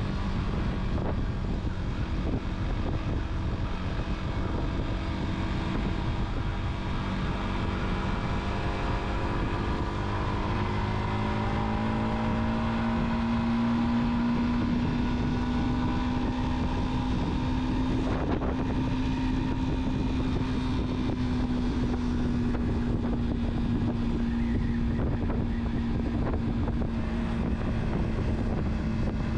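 Car engine and tyre/road noise while driving: a steady low rumble under a constant engine hum. The engine note rises a little about a third of the way in and stays higher.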